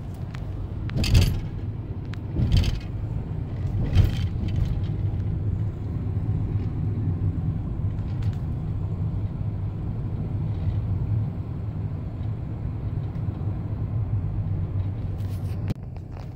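Interior noise of a Saturn car on the move: a steady low rumble of engine and tyres on the road, with three short knocks or rattles in the first few seconds. It drops to a quieter level just before the end.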